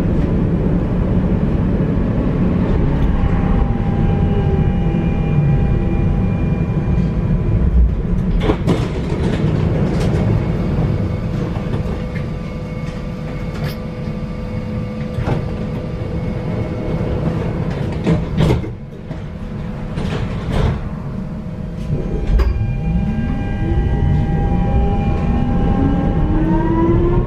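Nuremberg tram running along the rails: a continuous low rumble with a steady electric whine and several sharp clicks and knocks through the middle. Near the end the traction motor whine rises in pitch as the tram accelerates.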